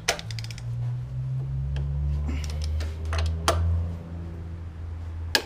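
Hand tools clicking and knocking on metal while a motor mount bolt is worked loose. There is a quick run of clicks at the start, then a few single sharp knocks, over a steady low hum.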